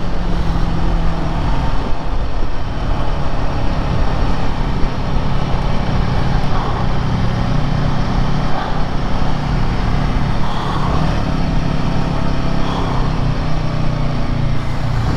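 Royal Enfield Himalayan 450's single-cylinder engine running at a steady speed on the move, under an even rush of wind and road noise.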